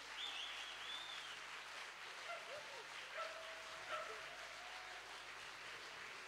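Audience applauding after a song, with cheering voices and a high whistle in the first second.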